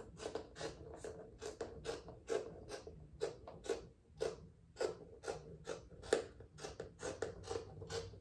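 Scissors cutting across a tank top in a steady run of snips, about three a second.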